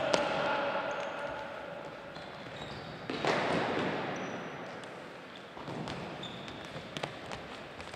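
Futsal ball being kicked and bouncing on a wooden sports-hall floor, with sharp knocks echoing in the hall. Short high squeaks of indoor shoes on the parquet come through between them.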